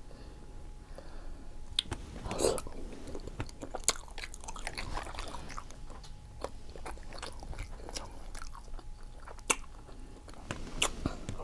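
A person chewing and biting seafood-boil food close to the microphone, with many short wet clicks and smacks.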